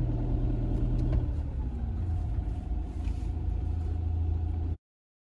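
Engine and road rumble inside a moving vehicle's cab, with a steady low engine hum whose note drops about a second in. The sound cuts off abruptly near the end.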